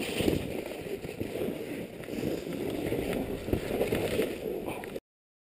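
Skis sliding and scraping through deep powder snow, a steady rushing noise with small irregular knocks, heard from the skier's own point of view; it cuts off suddenly about five seconds in.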